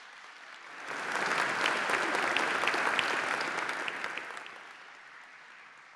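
Audience applauding: clapping swells about a second in, peaks for a couple of seconds, then dies away.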